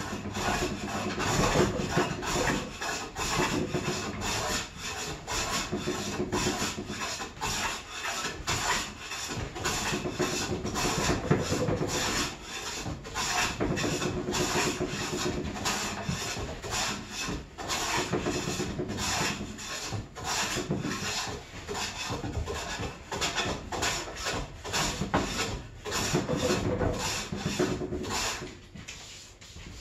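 Hand plane set fine for finishing, pushed in repeated strokes along a wooden beam, its iron shaving the surface in a dense scraping rub. It eases off near the end.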